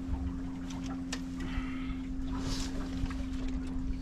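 A steady low motor hum aboard a fishing boat, with wind rumbling on the microphone and a few light clicks and knocks.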